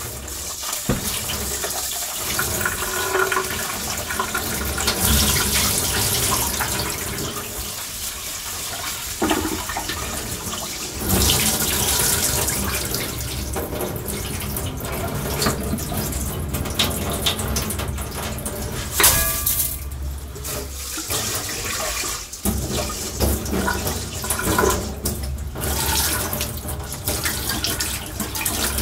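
Kitchen tap running into a stainless steel sink and a metal pot, the splashing rising and falling in strength. Near the end, water is poured from a pot into the sink.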